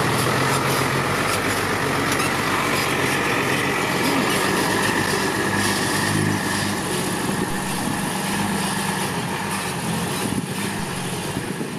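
Six-wheel dump truck's diesel engine running steadily, easing off slightly near the end.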